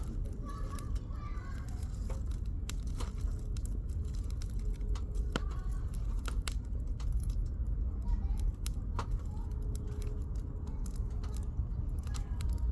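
Wood fire crackling, with irregular sharp pops of burning firewood over a steady low rumble.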